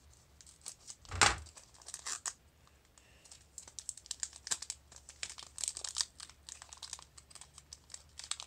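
Foil wrapper of a Pokémon card booster pack crinkling and tearing as it is opened and the cards are pulled out, in a dense run of rapid crackles from about three seconds in. One sharp knock about a second in is the loudest sound.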